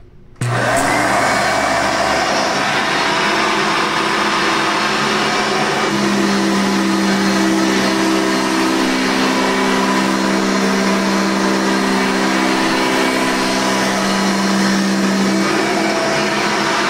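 An old Hoover vacuum cleaner is switched on about half a second in. Its motor whines up to speed and then runs steadily, with a deeper hum joining in from about six seconds until shortly before the end.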